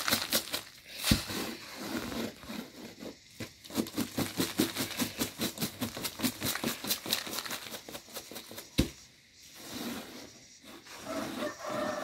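Cracked maize grits rattling and swishing in a woven sifting tray shaken in quick rhythmic strokes, about five a second, as coarse grits spill off the edge onto a plastic tarp. Two sharper knocks come about a second in and near nine seconds, with a pause in the shaking after the second.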